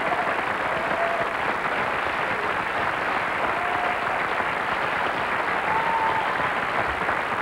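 Studio audience applauding steadily, with a few short high notes rising briefly above the clapping.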